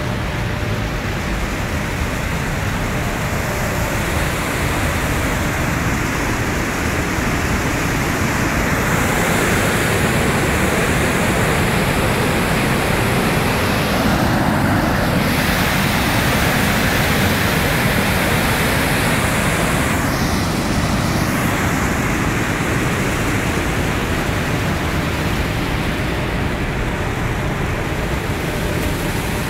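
Floodwater rushing steadily over a river dam's spillway, a continuous even noise that grows louder through the middle.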